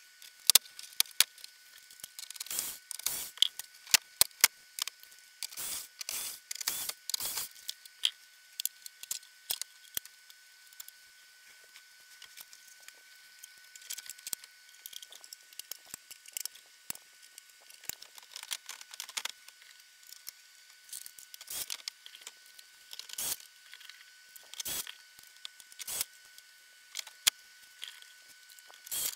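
Plastic dash trim and a radio unit in a Jeep Wrangler JL being pried apart and handled: a string of sharp clicks, snaps and rattles from trim clips and parts, thickest in the first several seconds. A faint steady high whine runs underneath.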